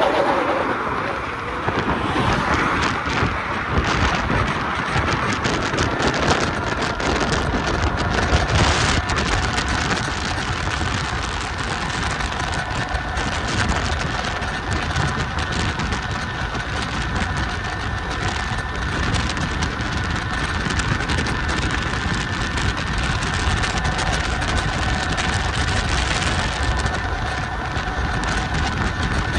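Wind rushing over the microphone and tyre noise from a Kaabo Wolf King GT dual-motor 72-volt electric scooter riding at speed. A steady high motor whine runs under the rush.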